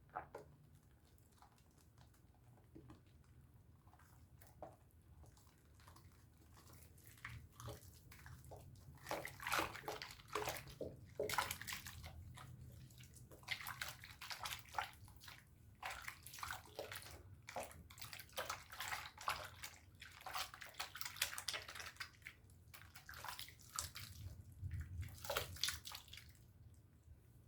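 A pink Dove soap bar being lathered with water: wet squishing and rubbing in irregular strokes. It starts faint, gets busy about a quarter of the way in and keeps going until near the end.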